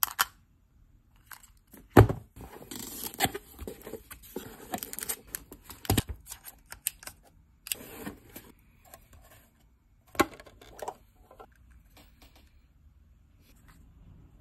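Handling of a micro RC van and its packaging: sharp little plastic clicks and knocks, the loudest about two, six and ten seconds in, with stretches of rustling and scraping in between. It goes quieter near the end.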